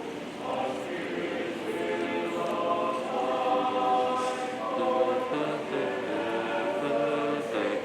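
High school chamber choir singing, voices holding chords that change step by step.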